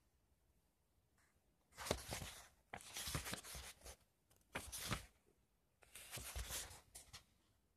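Pages of a paperback book turned by hand: about four short bursts of paper rustling and flicking, with quiet between.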